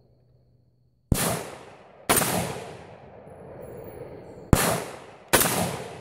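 Four shots from a semi-automatic Ruger Mini-14 rifle. Two come about a second apart, then a pause of more than two seconds, then two more close together. Each crack trails off in a fading echo.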